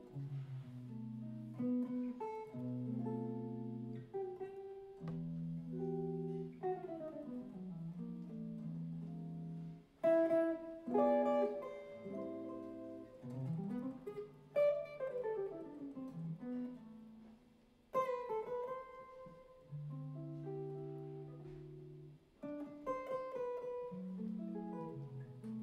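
Electric jazz archtop guitar played alone: plucked chords ringing out, broken by quick single-note runs up and down the neck.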